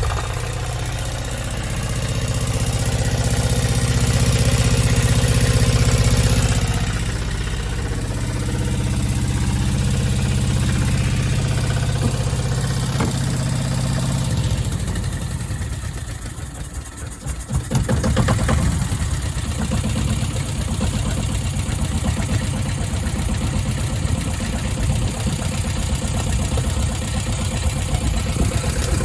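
Bukh DV8 marine diesel turning over on its starter motor in a first start attempt after years of disuse, with air still in the fuel line. The cranking drops away briefly about two-thirds of the way through, then resumes with a faster, more uneven rhythmic chugging.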